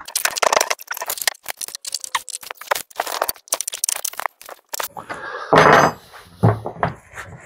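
Steel .404 saw chain clattering and clicking link against link as it is worked onto a long guide bar and around the chainsaw's drive sprocket, with a louder scrape about two-thirds of the way through.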